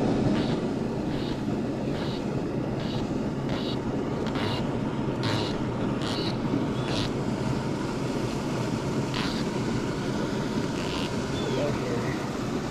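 Steady rush of flowing river water, with a short hissing zip about every second as fly line is stripped in by hand through the rod guides; the zips come regularly for the first seven seconds, then only twice more, further apart.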